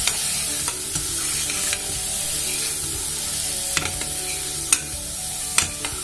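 A steel spoon stirring corn, onion and spices frying in ghee in an aluminium pressure cooker: a steady sizzle with sharp clicks of the spoon against the pan, the loudest near the end.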